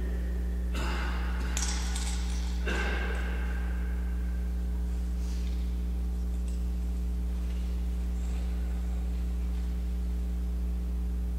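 A steady low hum, with a few faint knocks in the first three seconds that ring on briefly in the church.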